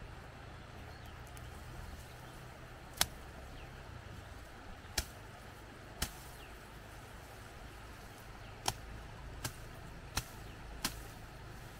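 Hand blade cutting through stalks of tall grass: about seven short, sharp cuts at irregular intervals starting about three seconds in, over a steady low rumble.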